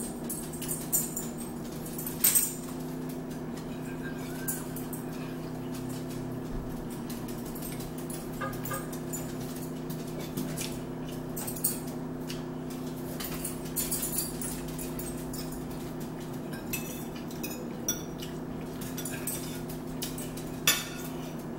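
Forks clinking and scraping against plates during a meal, in scattered light taps, over a steady low hum.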